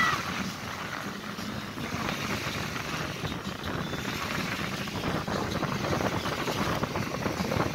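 Rushing noise of wind and surf at the shore, rising and falling without a steady tone.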